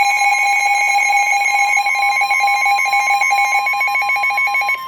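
Emergency Alert System attention tone: a loud, steady two-tone electronic alarm, the lower tone dropping out just before the end.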